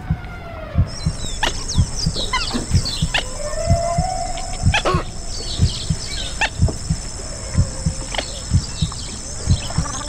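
A recorded heartbeat thumping steadily, layered with animal calls: many short chirps and falling cries, and a longer gliding moan a little after three seconds in.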